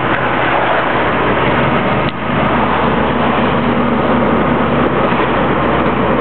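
Steady road and engine noise inside a moving car's cabin, with a brief dip about two seconds in.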